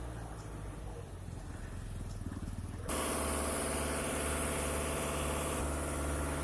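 Concrete mixer truck's diesel engine running steadily at idle. About three seconds in the sound jumps abruptly louder, with a hiss added over the engine.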